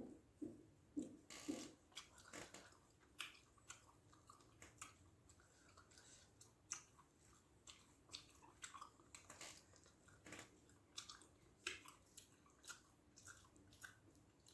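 Faint close-up chewing of rice with fish gravy: wet mouth smacks and clicks coming irregularly, several a second.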